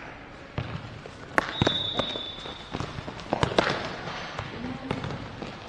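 Futsal ball being kicked and bouncing on a hard indoor court: a string of sharp, irregular thuds and smacks, with the strongest cluster around a second and a half in and again past three seconds, amid scuffing footsteps.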